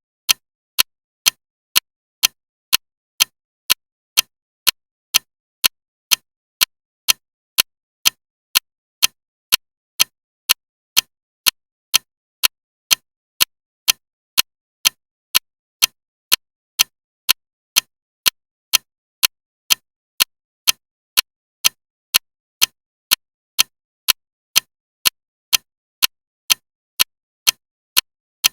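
Clock ticking loudly and steadily, sharp clicks at about two a second.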